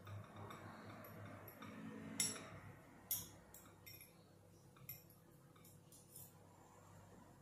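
Metal spoon and fork clinking against ceramic bowls while eating: a few sharp clinks, the loudest about two and three seconds in, with softer ones later.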